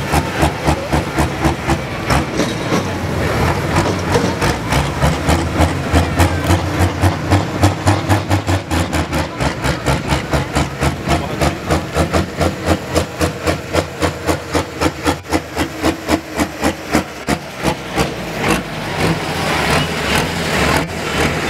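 Diesel engine of the Valtra-bodied Mad-Croc pulling tractor running at a loping idle, pulsing about four times a second, the beat evening out near the end.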